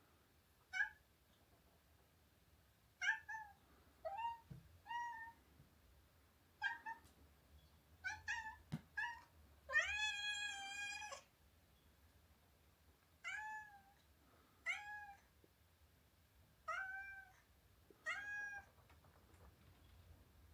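A domestic cat meowing over and over, a dozen or so short meows with one long drawn-out meow about ten seconds in. This is the cat's insistent calling to get out of the front door.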